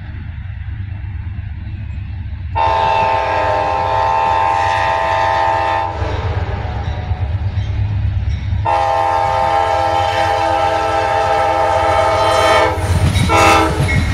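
Amtrak GE P42DC diesel locomotive sounding its multi-note air horn: a long blast about two and a half seconds in, a second long blast about three seconds later, then two short blasts near the end. The low rumble of the approaching train grows louder underneath.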